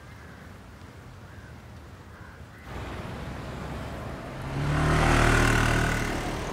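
Road traffic: a low hum, then street noise that cuts in suddenly, and a motorcycle engine that grows loud as it passes and starts to fade near the end.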